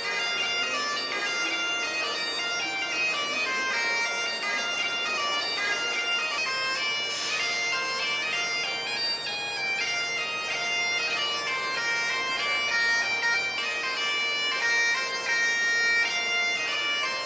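Scottish Highland bagpipes playing a tune: a quick-moving chanter melody over an unbroken steady drone.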